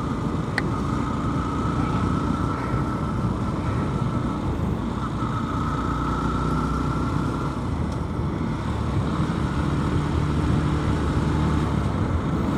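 Motorcycle riding on the road, heard through a helmet-mounted microphone: a steady rumble of engine and wind, with the engine's pitch climbing slowly, dropping about four and a half seconds in, then climbing again.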